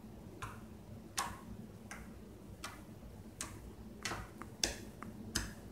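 Fingers pressing a lump of puffy glue slime on a wooden tabletop, giving a faint, short squelching click about every three-quarters of a second.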